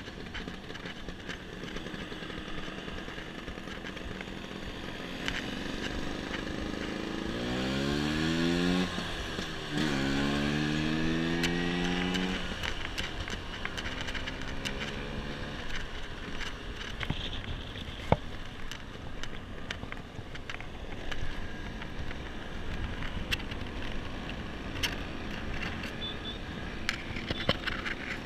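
Small scooter engines running on the move, with the engine note rising sharply twice as a scooter accelerates, about eight and ten seconds in. A single sharp click stands out later.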